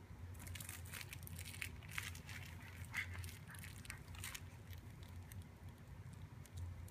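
Baby play gym's hanging toys crinkling and rattling in a quick run of small clicks as a baby grabs and tugs at them, stopping a little after four seconds in.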